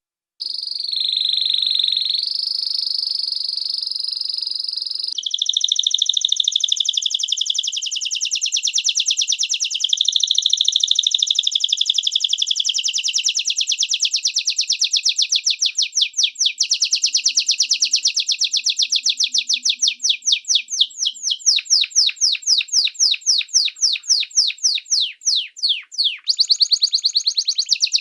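Domestic canary singing: it starts with high, steady whistled notes, then runs into fast trills. About halfway through the trill slows until each note is heard separately, and a fast trill returns near the end.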